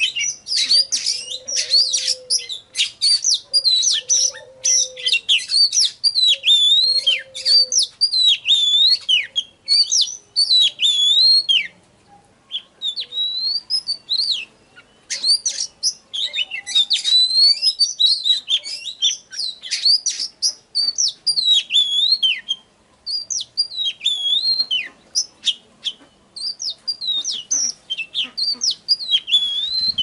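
Oriental magpie-robin singing: fast runs of clear whistles and chirps that swoop up and down in pitch. The song breaks off for about three seconds near the middle, then resumes, coming in shorter phrases toward the end.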